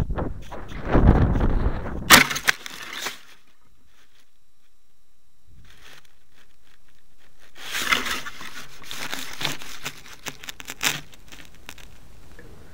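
Wind rushing over a descending model rocket's on-board keychain camera, then a sharp crack about two seconds in as the rocket comes down into a tree. After a few quiet seconds, twigs and needles crackle and rustle against the airframe in bursts.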